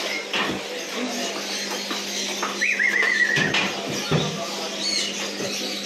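A puppy gives one short, wavering whine about halfway through, over the shop's background bustle with a few sharp knocks.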